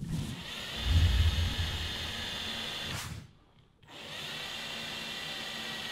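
Power drill with a 7 mm bit boring a shallow hole into a wooden subwoofer-box baffle, in two runs. The first lasts about three seconds and grows louder and deeper about a second in; after a brief pause, the second lasts about two seconds.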